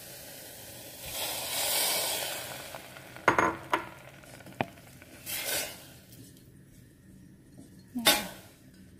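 Stir-frying in a stainless steel pot: a steady sizzle, then a loud hissing surge lasting about two seconds as a little water goes into the hot pan. A wooden spatula then knocks and scrapes against the pot several times, with one loud knock near the end, while the sizzle dies down.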